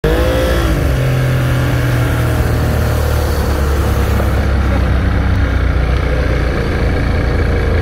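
Outboard motor running at speed, pushing a small boat across the water; its note dips briefly at the start, then holds steady. A rushing hiss of wind and wake rides over it and drops away about halfway.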